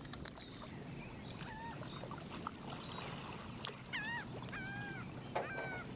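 Birds calling: a series of short, arched, falling calls, coming thicker in the second half, over a low steady wash of water.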